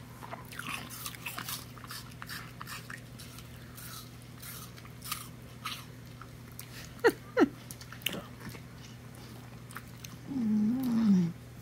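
Mini bull terrier biting and crunching pieces of raw apple, with many crisp crunches in the first half. About seven seconds in come two loud, short squeaks that fall in pitch, and near the end a brief low wavering vocal hum.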